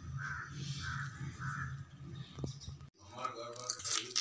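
A crow cawing four times, about every half second, over a steady low hum. The sound cuts out briefly about three seconds in, and a voice follows.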